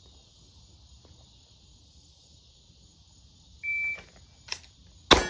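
Shot timer gives one short start beep, and a second and a half later a Glock 17 fires a single 9mm shot, the loudest sound, with a short click just before it. A ringing tone starts right after the shot.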